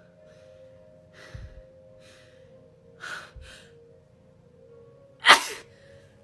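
A woman's few short, sharp breaths, then one loud sneeze about five seconds in, part of a nonstop sneezing fit that she puts down to allergies or possibly a dead gnat up her right nostril.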